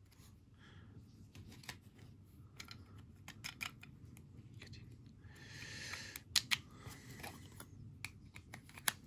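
A trading card being handled and fitted into a rigid clear plastic card case: scattered sharp plastic clicks and taps, with a short rustling slide about halfway through and the loudest clicks soon after.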